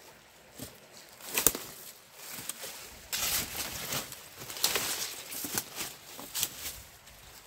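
Footsteps over loose rocks, dry leaves and twigs, irregular crunching and rustling through brush, with one sharper crack about a second and a half in.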